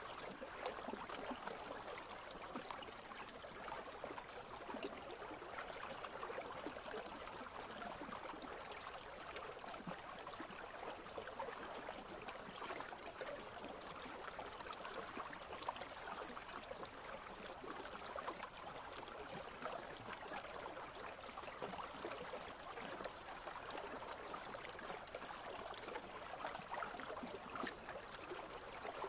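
Country stream flowing over stones: a steady babbling, trickling water sound.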